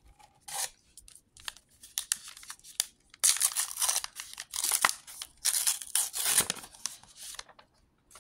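Paper wrapper of a Star Wars Unlimited booster pack being torn open and crinkled. There are a few short rustles, then a few seconds of louder tearing and crinkling from about three seconds in.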